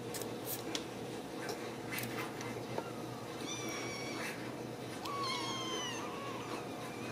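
A Ragdoll kitten mewing in a high pitch: a short mew about halfway through, then a longer one about five seconds in, with a few soft clicks from the kittens scuffling.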